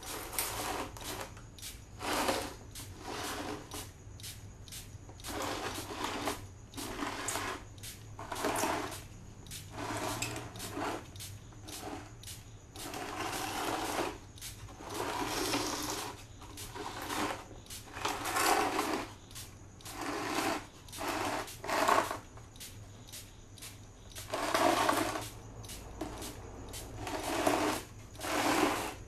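Small compressed-air spray gun hissing in short, irregular bursts as its trigger is pulled on and off, spraying spray-on chrome solution, with a low steady hum underneath.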